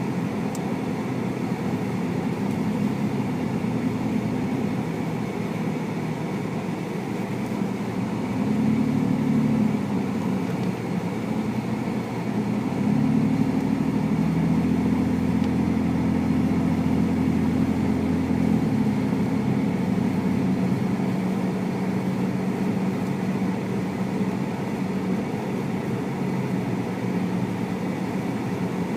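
Car engine and road noise heard from inside the cabin while driving, a steady low hum that swells twice, briefly about eight seconds in and for several seconds from about thirteen seconds in.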